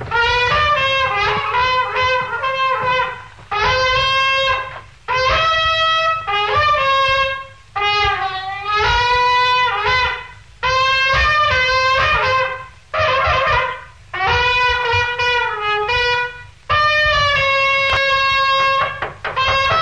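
A solo wind instrument with a trumpet-like tone plays a melody of held notes. It comes in about eight short phrases, with brief breaks between them and slight bends in pitch at the ends of the phrases. A low hum runs underneath.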